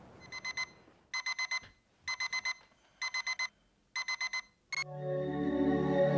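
Digital alarm beeping in quick groups of four short, high beeps, the groups repeating about once a second. It cuts off near the end as music comes in.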